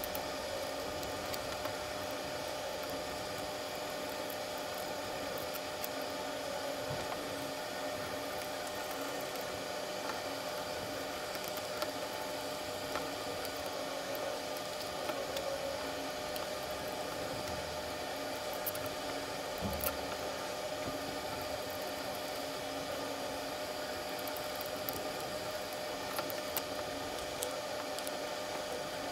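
Steady background hiss with a faint, even hum tone, broken by a few faint clicks as plastic gear motors and acrylic brackets are handled on the chassis.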